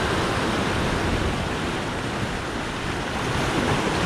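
Open-sea surf washing against a rocky shore: a steady rush of breaking water with no distinct events.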